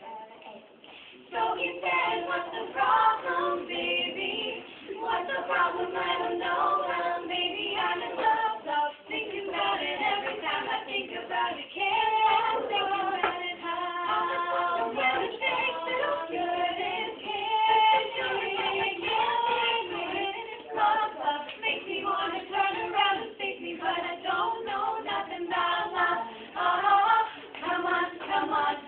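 A small group of teenage girls singing a cappella in harmony, starting about a second in.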